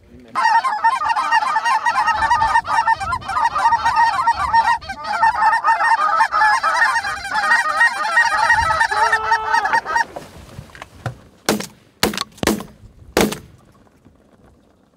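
A big flock of Canada geese honking and cackling overhead in a dense chorus that stops about ten seconds in, followed by four shotgun shots in under two seconds.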